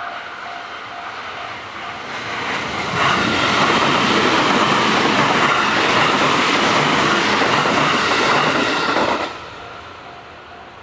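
Japanese level-crossing warning bell ringing about twice a second while a JR West electric commuter train runs through the crossing. The train builds up over a second or so and stays loud for about six seconds. It cuts off suddenly about nine seconds in, leaving the bell ringing again.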